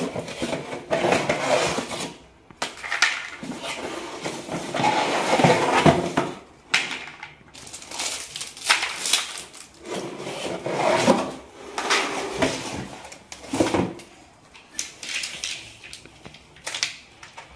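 Plastic toy track pieces and a cardboard box being handled while unpacked: irregular rustles, scrapes and light knocks of plastic parts.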